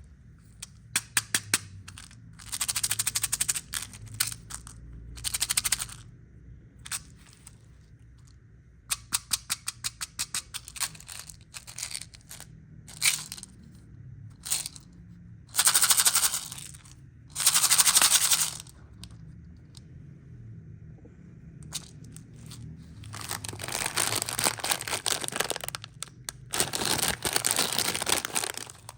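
Plastic candy packaging being handled: bursts of crinkling and crackling of the wrapper, with runs of sharp clicks and taps in between.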